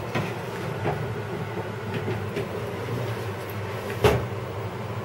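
A metal baking tray goes into an oven with a few light clatters, then the oven door shuts with a single sharp knock about four seconds in, over a steady low hum.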